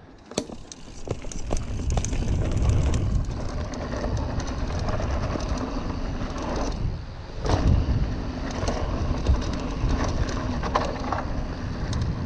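Specialized Stumpjumper mountain bike riding fast down a dirt woodland trail: wind buffeting the camera microphone and tyres rumbling over the ground, with many sharp rattles and clicks from the chain and frame over bumps. It drops briefly about seven seconds in, then comes back louder.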